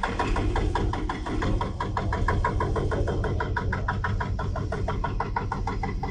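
An engine running with a rapid, even clatter of about eight knocks a second over a steady low rumble.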